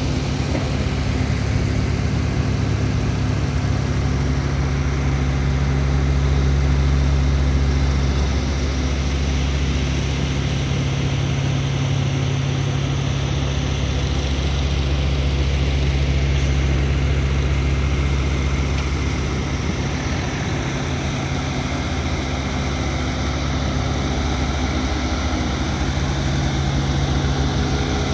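Heavy diesel engine of earthmoving machinery running steadily at or near idle, a continuous low engine sound that grows a little louder about a quarter of the way in.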